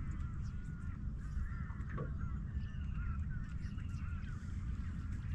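A flock of birds calling continuously, many short overlapping calls at once, over a steady low rumble.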